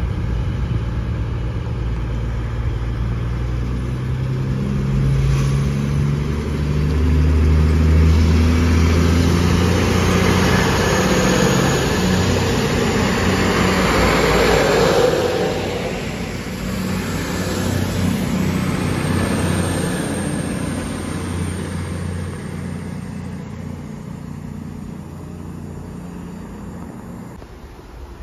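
CrossCountry Voyager diesel multiple unit passing on its underfloor diesel engines, with a rush of wheels and air that is loudest about halfway through as the cars go by, then fading as it runs away down the line.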